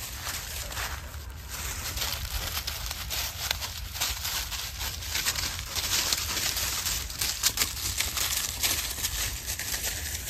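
Crunching and rustling of dry fallen leaves, as of footsteps through deep leaf litter: a dense run of irregular small crackles with a low rumble underneath.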